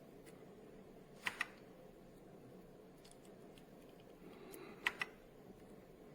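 Keys of a mechanical keyboard being pressed: two pairs of sharp clicks, one about a second in and one near five seconds in, with a few faint ticks between.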